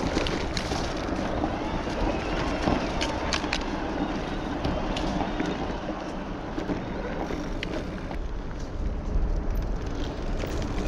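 Electric mountain bike riding a rough dirt trail: steady tyre and wind noise with frequent clicks and rattles from the bike over bumps and stones.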